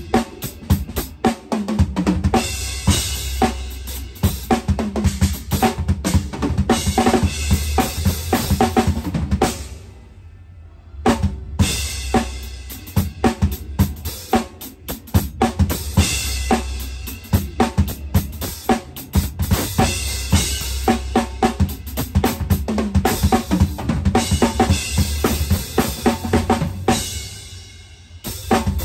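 Drum kit played live in fast, dense fills, with bass drum and snare to the fore. The playing breaks off briefly about ten seconds in and again near the end.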